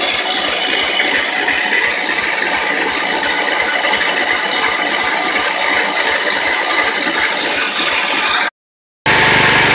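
A Wheel Horse garden tractor's 10 hp Kohler engine turning over on the starter with a steady rattling clatter as it is started, its carburetor choked by hand, after sitting three years. The sound cuts out briefly near the end, then comes back.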